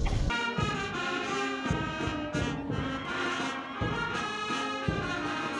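Brass band music playing a melody, cutting in abruptly just after the start.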